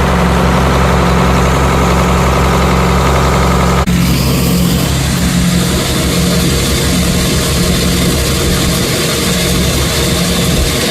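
Engine of heavy farm machinery running steadily with a deep, even hum, changing abruptly about four seconds in as one shot gives way to another.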